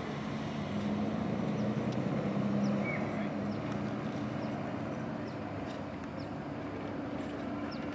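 A motor vehicle's engine running steadily with a low hum, loudest in the first few seconds and then easing off.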